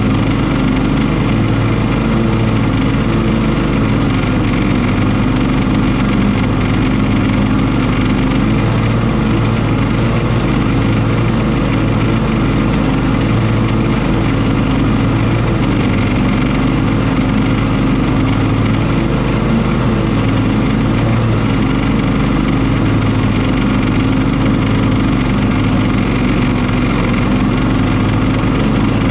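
Cub Cadet Enduro XT1 ST54 riding lawn mower running steadily while mowing tall, thick grass and weeds, its engine note wavering slightly with the load.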